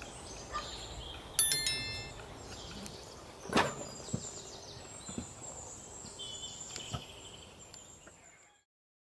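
Outdoor nature ambience with faint chirps, a brief high ringing tone about one and a half seconds in, and a few sharp clicks, fading out to silence near the end.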